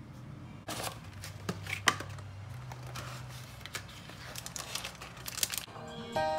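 Crinkling and rustling handling sounds with scattered light clicks, over a low steady hum.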